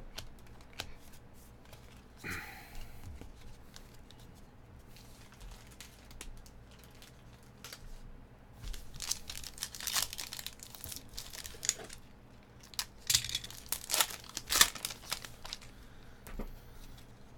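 A foil trading-card pack wrapper being torn open and crinkled by hand: a run of short tearing and crinkling sounds starting about halfway through, loudest near the end.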